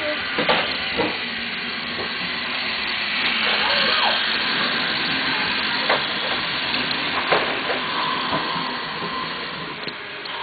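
Battery-powered toy trains running on plastic track: a steady whirring hiss with a few clicks and knocks.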